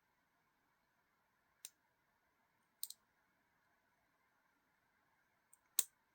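Small hard clicks and taps of folding-knife parts being fitted together by hand: a single click, a quick double click, then a louder click near the end, with near silence between.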